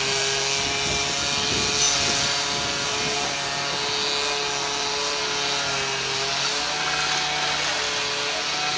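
Steady hum of running engines or machinery holding several even tones, with a lower tone cutting in and out in the second half and some scraping and crunching about a second or two in.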